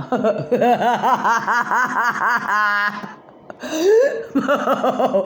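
A person laughing hard in quick repeated high-pitched ha's, breaking off briefly about three seconds in and then laughing again.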